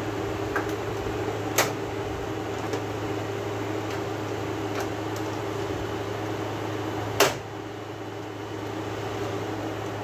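Window air conditioner running in cooling mode, its fan and rotary compressor giving a steady hum. Two sharp plastic clicks, about a second and a half in and again about seven seconds in, as the front cover is pressed onto the unit; after the second the hum is a little quieter.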